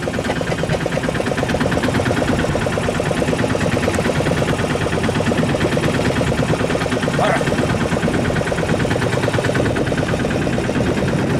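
Fishing boat's engine running steadily, with an even, rapid pulsing beat.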